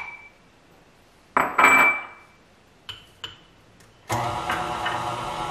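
A few clinks of a dish against a glass mixing bowl as flour goes in. About four seconds in, an electric stand mixer's motor switches on and runs with a steady hum, mixing cheese, egg and almond-flour dough.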